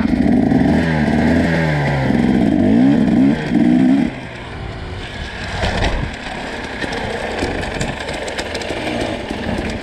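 Dirt bike engine revving, its pitch rising and falling for about four seconds, then dropping to a quieter, rougher running. There is a sharp knock about six seconds in.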